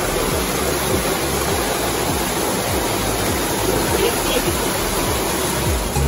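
Mountain stream running steadily over rocks: an even rush of water.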